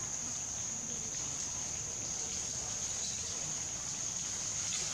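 Forest insects droning steadily as one continuous, even, high-pitched buzz.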